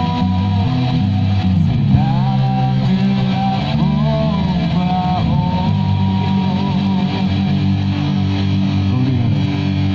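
A band playing at a sound check: an electric guitar holds long notes, bending in pitch several times, over bass guitar.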